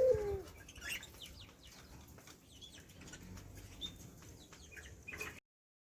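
A puter dove's coo trailing off at the start, followed by scattered short, high chirps of lovebirds and light clicks. The sound cuts off suddenly a little after five seconds in.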